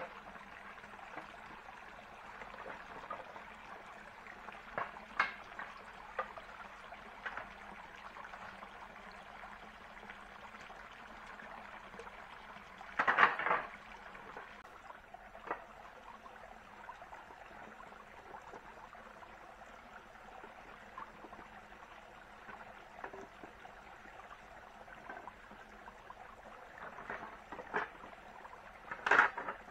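Steady trickle of running water, with scattered light clicks and two brief louder noises, one about halfway through and one near the end.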